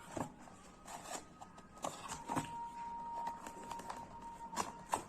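Close-miked crisp clicks and crackles from a pizza and burger meal, scattered irregularly, with a faint steady tone for about two seconds in the middle.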